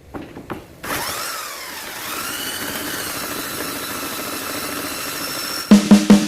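Electric belt sander (Modern M-2561, 1200 W): a few clicks, then the motor starts, rising in pitch as it comes up to speed and running steadily. A drum beat comes in near the end.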